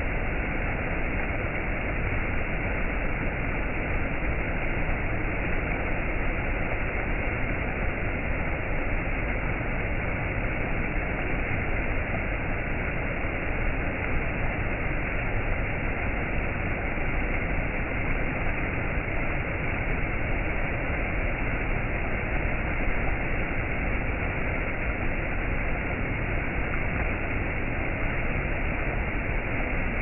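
Shallow stream rushing over small rock ledges and cascades: a steady, unbroken rush of water that stays even throughout.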